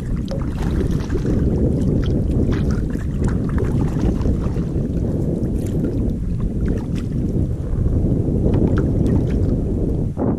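Wind buffeting the microphone in a heavy, rough rumble, with many short splashes of water against a kayak low on the sea.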